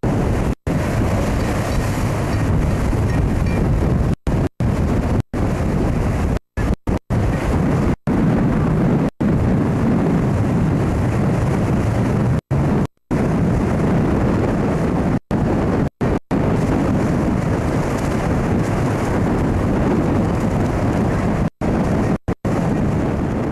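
Hurricane wind blasting the camcorder microphone, a loud, low, continuous rush mixed with heavy surf breaking against a seawall. The sound cuts out for split seconds again and again.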